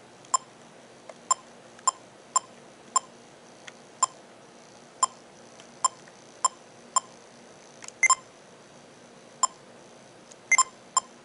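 Sony Hi8 Handycam camcorder giving short electronic confirmation beeps as its menu buttons are pressed. There are a dozen or so identical beeps at uneven intervals, a few of them in quick pairs.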